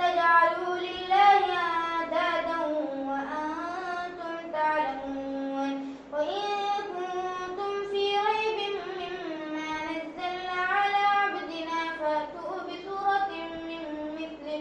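A boy reciting the Quran aloud in a melodic chant, as in tarawih prayer, holding long notes that rise and fall in pitch, with a short pause for breath about six seconds in.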